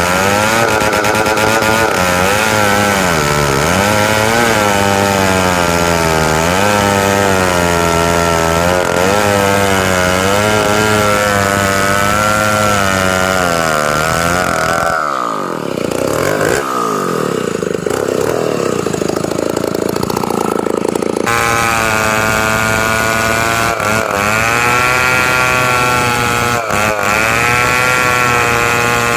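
Two-stroke chainsaw running at high speed while ripping timber into beams, its pitch dipping and recovering as the chain bogs in the cut. About halfway through the engine pitch falls away and a rougher, different sound lasts about six seconds before the saw comes back suddenly at full speed.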